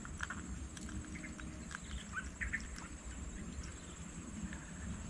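Outdoor rural ambience: a steady high-pitched insect drone, with short bird chirps scattered through and a low rumble underneath.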